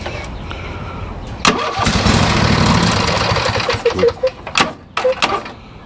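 Riding mower's electric starter cranking the engine. It kicks in with a sharp click about a second and a half in, then turns over unevenly near the end as the engine labours to start.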